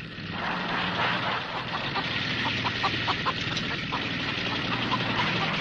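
Horror-film trailer soundtrack: a dense, hissing drone over a steady low hum, with a run of short ticks and clicks about halfway through.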